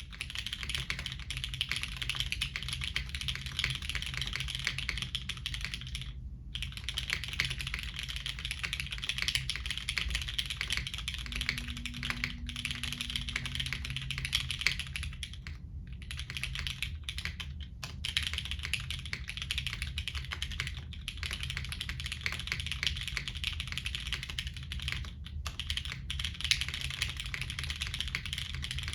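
Fast, continuous typing on a GEON F2-84 mechanical keyboard, rebuilt plateless with MX Brown tactile switches and SW Knight V4 stabilizers. The keystrokes clatter steadily, broken by a few brief pauses.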